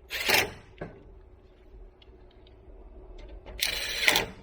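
Handling noise from working with hardware: a short rustling, clattering burst at the start, a click about a second in, a few light ticks, then a longer, louder rustle near the end.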